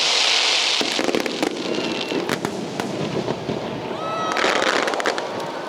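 Fireworks going off: a loud hissing burst, then a rapid spray of sharp crackling pops, with a short high whistle about four seconds in.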